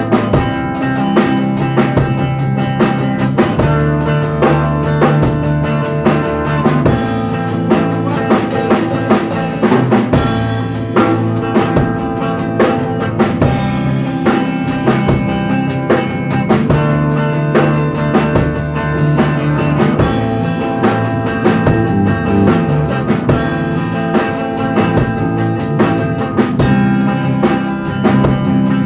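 Band music with a steady drum-kit beat, snare and bass drum driving the rhythm under sustained instruments.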